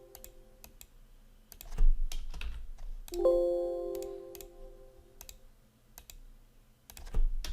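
Computer keyboard keystrokes and clicks while file names are edited, with two low thumps, one about two seconds in and one near the end. About three seconds in comes a single Windows alert chime, a ringing note that fades over a second or so. Each such chime marks one file-extension change.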